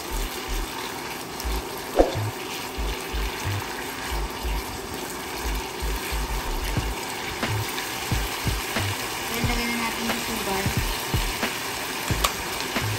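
Ground beef and onions sizzling in a hot wok while being stirred and pushed around with a silicone spatula, with scattered light scrapes and taps.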